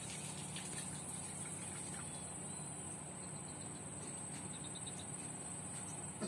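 Insects trilling steadily in one continuous high-pitched tone, over a faint low background hum.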